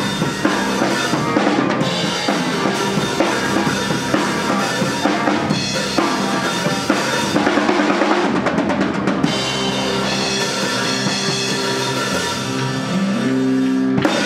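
Live rock band playing an instrumental passage on drum kit, guitars and keyboard, with no singing. About eight seconds in, a fast drum roll leads into a long held closing chord.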